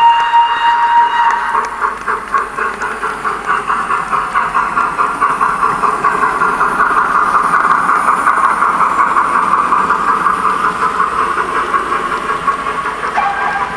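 Sound-fitted model of a BR Class 9F steam locomotive, 92220 'Evening Star', running through with its decoder playing the sound of the real engine. A steam whistle is held for the first second or two, then comes quick, steady chuffing, and a short whistle note sounds near the end.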